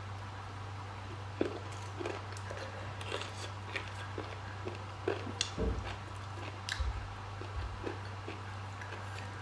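Close-up chewing of boiled chicken and rice eaten by hand: many small wet mouth clicks and smacks, with a few low bumps about halfway through. A steady low hum runs underneath.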